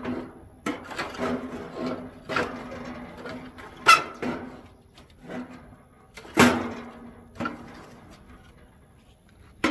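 A wooden stick poking and raking burning coals in a steel smoker firebox: scraping, with several sharp knocks against the metal, the loudest about four and six and a half seconds in.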